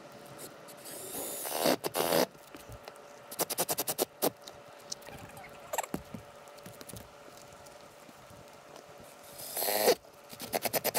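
Cordless drill driving screws through a roof mount's flashing plate into a shingle roof: the motor whines for about a second, then a quick run of rapid clicks follows, and the pattern comes twice.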